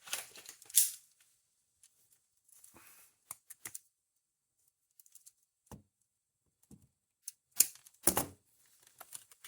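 A coil of 20-gauge galvanized steel wire being handled and pulled out to length: scattered sharp clicks and rustles of the stiff wire, with a quiet pause midway.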